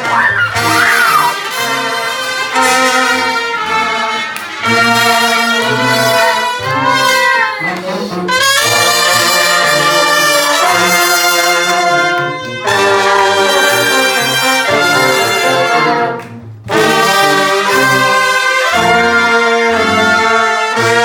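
Brass band playing a lively tune, trumpets and trombones carrying the melody over a moving bass line, with a brief break about sixteen seconds in.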